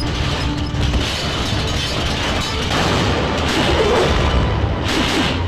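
Action-film soundtrack: background music with heavy booming hits, and a crash-like impact near the end.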